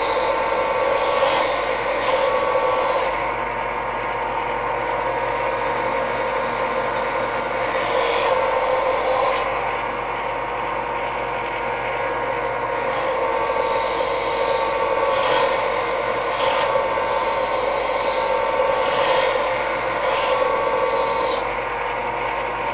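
Benchtop belt sander running steadily, with a scratchy grinding that swells and fades again and again as a wooden spatula blank is pressed against the belt to shape it.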